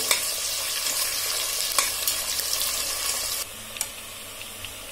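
Sliced onions and cumin seeds sizzling in hot ghee and oil in a stainless-steel pressure-cooker pot, with a spatula stirring and scraping them. About three and a half seconds in, the sizzle drops suddenly to a quieter hiss with a few light ticks.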